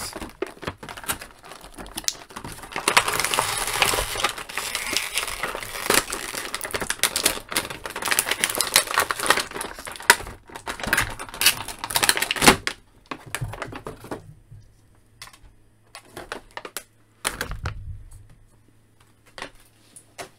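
Thin clear plastic blister packaging crinkling and crackling as it is bent and pulled away from an action figure, thick with sharp clicks. After about twelve seconds it thins out to scattered clicks and taps.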